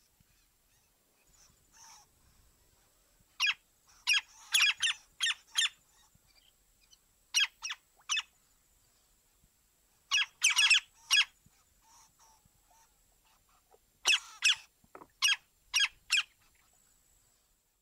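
A bird calling: short, sharp calls given in quick runs of about three to seven, with pauses of a second or two between the runs.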